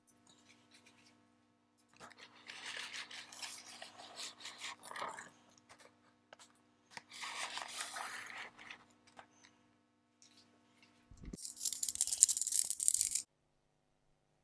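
Cardboard box of a building-brick set being opened with a steel ruler: metal scraping and rubbing on cardboard in three bursts, about two, seven and eleven seconds in. The last is the loudest and most hissing and starts with a low thump.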